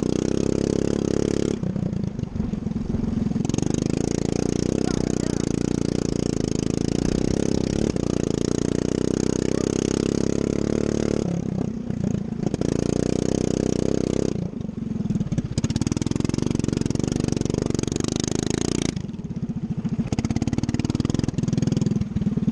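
Racing lawn mower's engine running hard at high revs. It drops off four times as the throttle is eased and picks back up each time.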